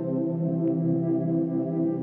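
Calm background music with held, slowly changing chords.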